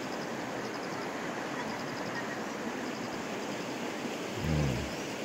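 Steady rush of flowing river water, with a person's brief low hum about four and a half seconds in.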